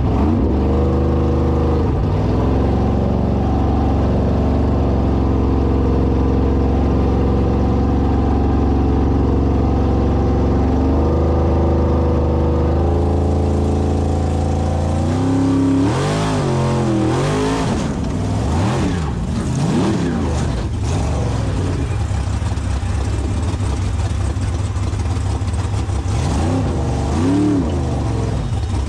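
Formula Offroad hill-climb car's engine running loud, held at steady high revs for about fifteen seconds. It then revs up and down repeatedly as the throttle is worked.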